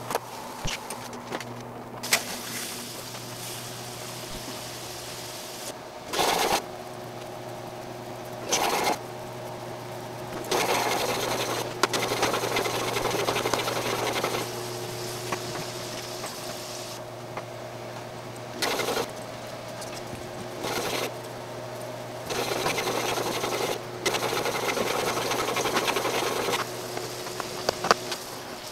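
CatGenie self-washing litter box running its wash cycle: a steady motor hum, broken by bursts of water rushing into the bowl, a few short and two longer ones lasting several seconds.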